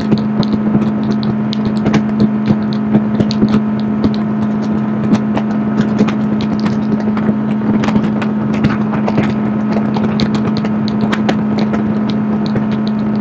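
Bass boat's outboard motor running steadily at cruising speed, a constant hum, with many short sharp ticks and knocks over it.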